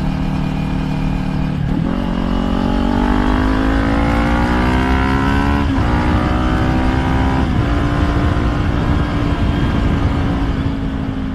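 Kawasaki Ninja 400's parallel-twin engine under way: steady at first, then climbing in revs from about two seconds in, a gear change near the middle, then holding steady. Heavy wind rumble on the helmet microphone runs underneath.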